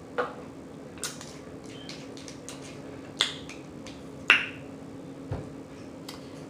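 Mouth smacking while eating cinnamon applesauce: about five short, wet lip smacks a second or so apart.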